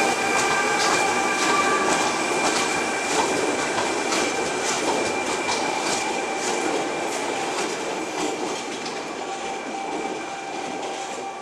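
A slow convoy of Trenitalia E.464 electric locomotives and a diesel shunter rolling past. Its steel wheels squeal steadily and click over rail joints and points, and the sound fades gradually as the convoy moves away.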